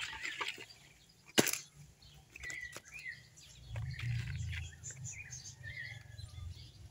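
A sharp knock of black plastic plant pots being handled, about a second and a half in, then a hand scooping and scattering potting soil into a pot. Small birds chirp throughout.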